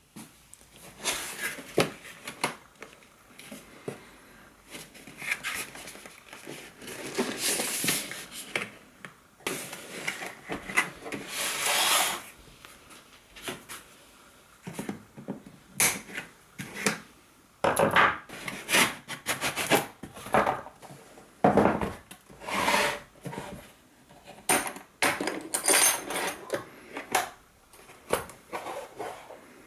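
Packaging being handled while a power tool is unboxed: irregular rustling and scraping with scattered sharp knocks, with no motor running.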